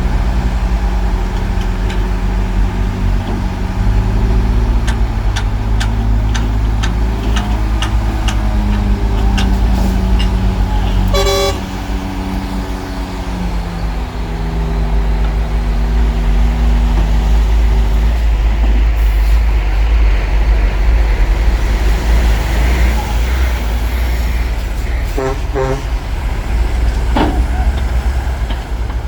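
Heavy diesel earthmoving machinery running loudly, its engine pitch rising and falling as it works, with a run of knocks and clanks. A short horn toot sounds about eleven seconds in.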